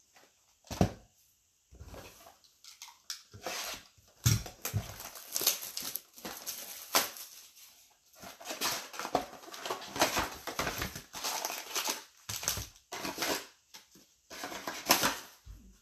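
A cardboard retail box of Select baseball card packs being opened and emptied by hand: irregular rustling and crinkling of wrapping and cardboard, with sharp taps as the foil packs and the box are handled and set down on the playmat.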